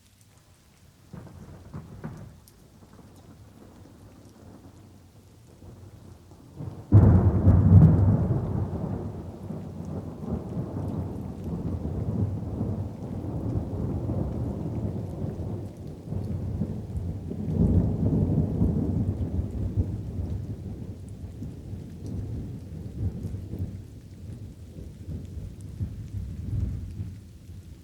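Thunder over light rain. A faint low rumble comes about a second in, then a sudden loud clap about seven seconds in rolls on at length, swells again past the middle and dies down near the end.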